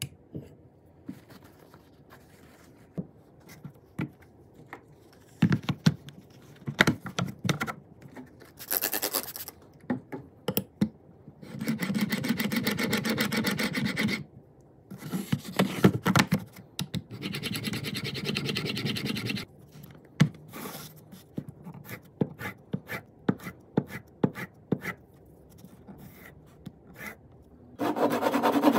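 Steel chisel blade in a honing guide being worked back and forth on 6,000 and 12,000 grit sharpening stones, in several runs of scraping strokes a second or three long, between scattered clicks and taps. Near the end a Japanese hand saw starts cutting wood, louder than the honing.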